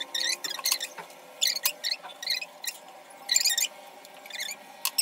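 Gloved hand rubbing a baking-soda-and-oil paste onto the label of a plastic bottle: short, hissing rubbing strokes at irregular intervals.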